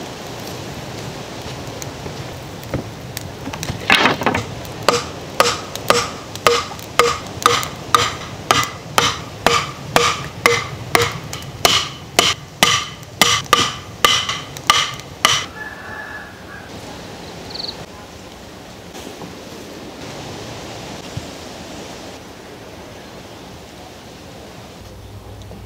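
Wooden stakes being driven into the ground with a wooden club: about two dozen even knocks, about two a second, each with a short ringing tone, stopping about fifteen seconds in. A steady hiss lies underneath throughout.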